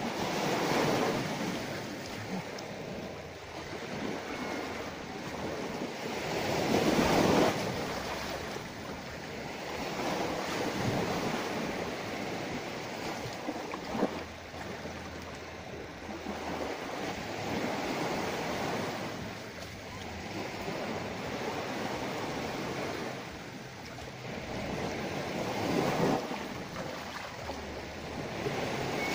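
Sea waves washing in, a steady rush that swells and eases every several seconds, with wind buffeting the microphone. A single sharp click comes about halfway through.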